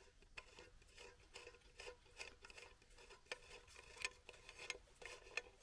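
Faint, irregular clicks and scrapes of a small steel screw cap being turned off the filler hole of a steel alcohol burner, metal rubbing on metal under the fingers.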